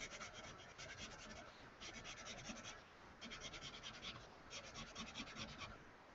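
Graphite pencil shading on sketchbook paper: faint, quick scratchy strokes in several short bursts with brief pauses between them.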